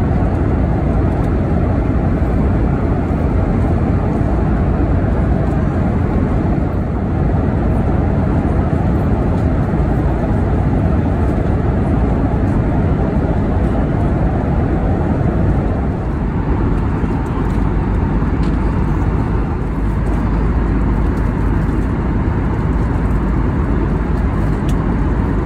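Steady cabin noise of an Airbus A320neo in cruise flight: a constant deep rush of engine and airflow noise.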